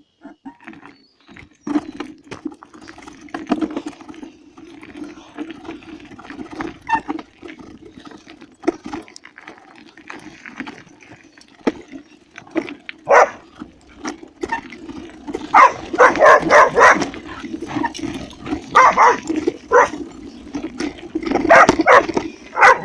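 A dog barking repeatedly, with quick runs of several barks in the second half, over a steady low drone.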